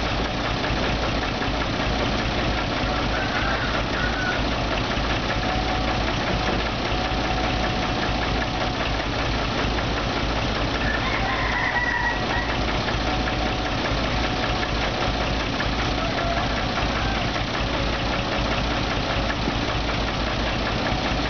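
Steady diesel engine noise as a Kubota U35 mini excavator works its arm, loading soil into a dump truck. A rooster crows twice in the background, once early and once about halfway through.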